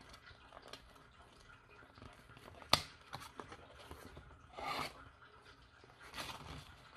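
Paper rustling and crinkling as a paper Pokémon card pack is handled and opened out by hand, with a single sharp click a little under three seconds in and a louder rustle near five seconds.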